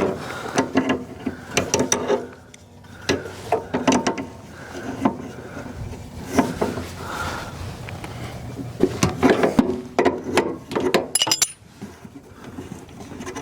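Hand tools working on an Attwood RV furnace during disassembly: irregular clicks, clinks and knocks of metal parts and fasteners.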